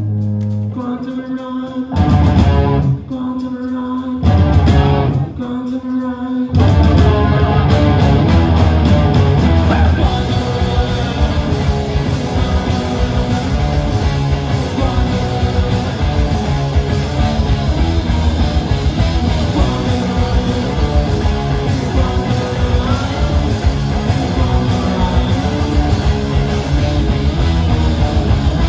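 Live rock band, two electric guitars, bass guitar and drum kit, playing loud. The first few seconds are short stop-start hits with gaps between them; about six seconds in, the full band breaks into continuous playing.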